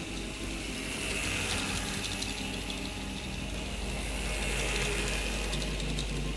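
Mehanotehnika HO T360 toy electric tram running on its track, its small electric motor and gears whirring steadily, with a few light clicks from the wheels later on.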